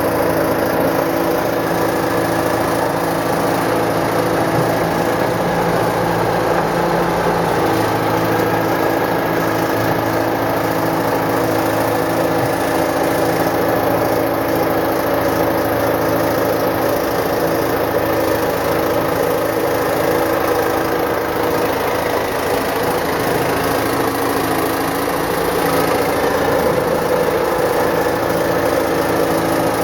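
Caterpillar 955 track loader's diesel engine running steadily at an even speed, without revving.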